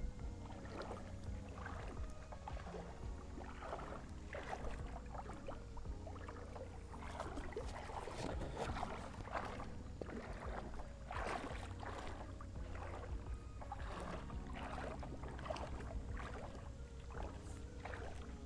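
Shallow creek water sloshing and splashing around a wader moving through it, in irregular splashes over a low steady rumble.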